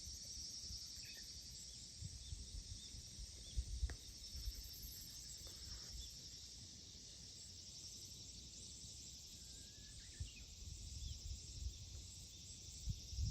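Outdoor ambience of insects trilling steadily, with a few faint short bird chirps and occasional low rumbles.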